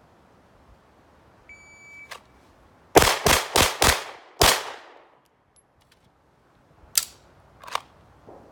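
Electronic shot-timer start beep, then five rapid handgun shots fired in about a second and a half. Two fainter sharp cracks follow near the end.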